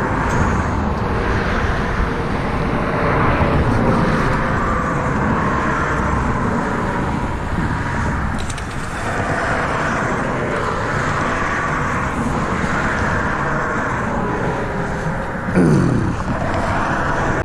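Steady road traffic noise, with cars passing and the level swelling and easing off. Near the end a single vehicle's engine note falls in pitch as it goes by.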